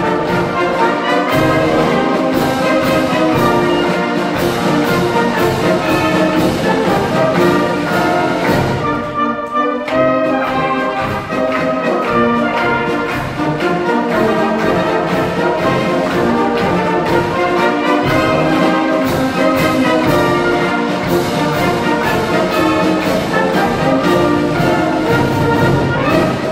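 Youth wind band playing, brass leading over a steady drum beat, briefly quieter about nine seconds in.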